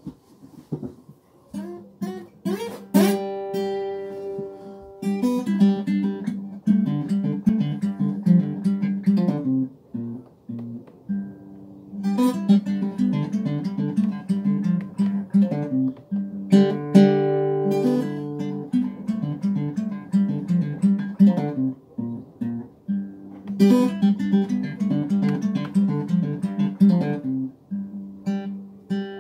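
Solo acoustic guitar played, chords picked and strummed in repeating phrases, with short breaks about ten seconds and twenty-two seconds in.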